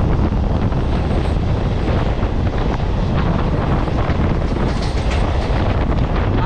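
MEMU electric passenger train running at speed, heard from an open window: a steady rumble of wheels on the rails with scattered clattering, and wind buffeting the microphone.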